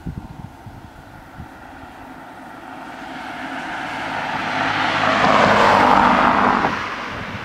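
A car (an SUV) driving past close by, its tyre and engine noise rising as it approaches, loudest about six seconds in, then falling away quickly.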